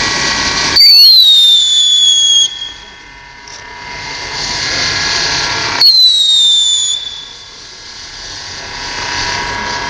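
Fireworks going off on the water: a steady hissing spray of sparks, broken twice by a loud whistling firework. Each whistle starts suddenly and falls in pitch. The first comes about a second in and lasts nearly two seconds; the second comes about six seconds in and is shorter.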